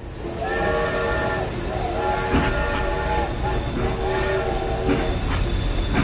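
Toy steam locomotive running on plastic track: a steady high-pitched whine throughout, with a group of long tones sounding three times over it and a few clicks near the end.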